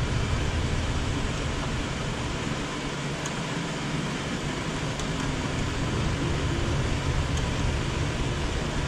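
A screwdriver tightening the screw terminals of a car amplifier, heard as a few faint clicks over a steady background hum and hiss.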